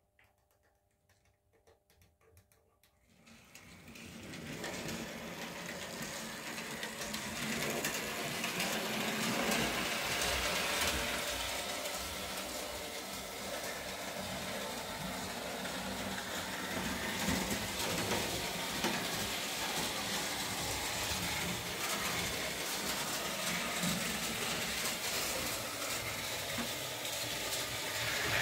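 Märklin model steam locomotive running along its track, its electric motor and gears whirring steadily with a busy rattle. The run starts about three seconds in, after a few faint clicks.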